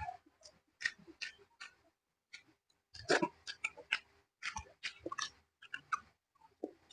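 Close-up chewing of paksiw na pata, braised pork hock: irregular wet mouth clicks, with a pause of about a second near the middle.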